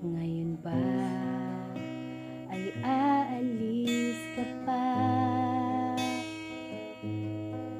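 A woman singing a Tagalog worship song with held, wavering notes, over acoustic guitar accompaniment.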